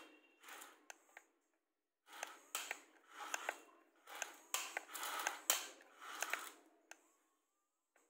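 Toy excavator working its arm and bucket through sand: a string of short grinding bursts with sharp clicks as the bucket scoops and lifts. There is a pause of about a second near the start, then the bursts continue.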